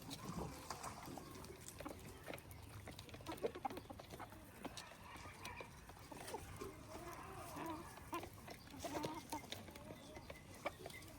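Chickens clucking faintly, with short wavering calls clearest in the middle and scattered small clicks and knocks throughout.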